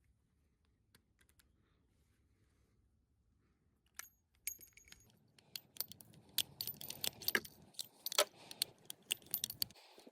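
Metal clicking and clinking of the 1895 Nagant revolver and its cartridges being handled, with a few short high rings like brass cases knocking together. One sharp click comes about four seconds in, and a busy run of clicks and clinks follows.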